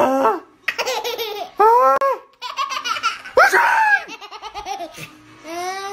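A young child laughing in repeated high-pitched bursts of giggles, with a louder breathy burst about three and a half seconds in.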